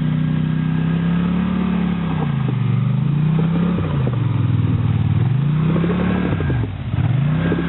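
ATV engine revving hard as the machine bogs down in soft mud. The revs hold high, then drop and climb again about three times: the quad is stuck, digging itself in rather than moving.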